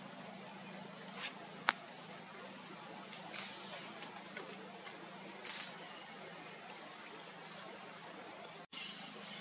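Steady high-pitched insect chorus of forest crickets or similar insects, with a faint low hum beneath it. A single sharp click sounds a little under two seconds in, and the sound cuts out for an instant near the end.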